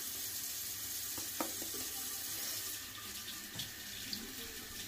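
Bathroom tap running steadily into the sink, with a small knock about a second and a half in; the sound of the running water changes about three seconds in.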